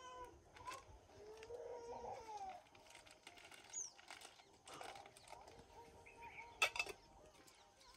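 Faint farm-field sounds: distant chickens and birds calling, with a few light knocks.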